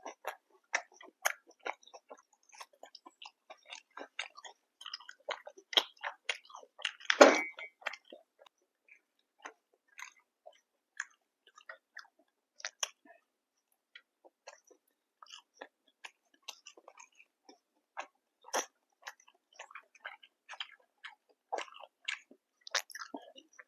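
A person chewing food close to the microphone: many small wet mouth clicks and smacks, with one louder, longer bite about seven seconds in.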